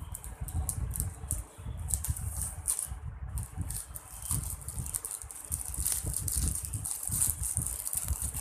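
Parcel packaging being opened by hand: irregular crinkling and rustling with many short crackles, over a low handling rumble.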